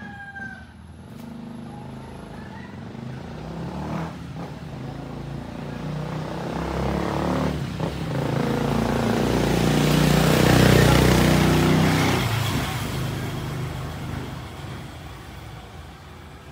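A motor vehicle drives past unseen: engine and road noise swell slowly, are loudest about ten seconds in, then fade away.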